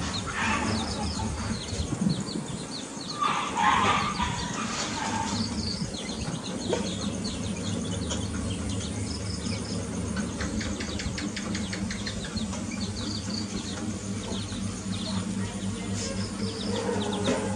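Young chickens peeping: many short, high chirps repeating throughout, with a louder, lower call about three and a half seconds in.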